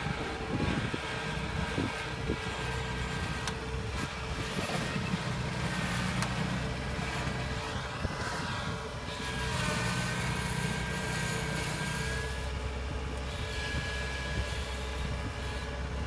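Kubota crawler combine harvester's diesel engine running steadily as the machine drives across the field, a low drone with occasional brief knocks and rattles.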